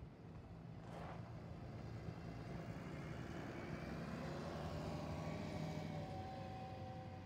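School bus's diesel engine pulling away through a turn, its drone building and a whine rising slightly in pitch as it accelerates, then easing as it moves off. A brief click about a second in.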